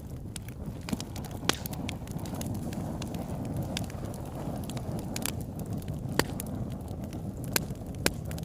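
Fire crackling: sharp pops at irregular intervals over a steady low rumble.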